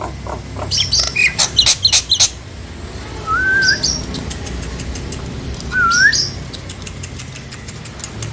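Nias hill myna calling: a quick run of clicking, chattering notes in the first two seconds, then two loud whistles a couple of seconds apart, each a wavering note that slurs upward. A steady low hum runs underneath.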